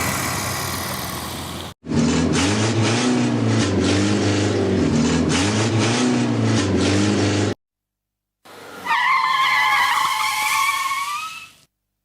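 A string of separate car sound effects cut hard against silence: a noisy sound fading out and cut off, then a small car engine running with its pitch wavering up and down for about six seconds, then after a gap a high tyre screech lasting about three seconds.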